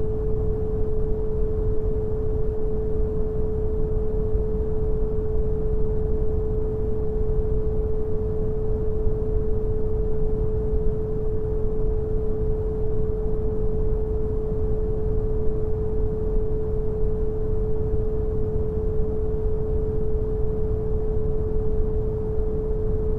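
Synthetic brown noise, a steady deep rush, with a single pure 432 Hz tone held unchanging over it.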